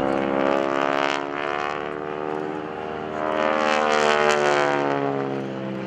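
North American SNJ-5 Texan in aerobatic flight: its Pratt & Whitney R-1340 Wasp radial engine and propeller drone overhead, swelling louder twice as the pitch slides up and down with the aircraft's manoeuvring.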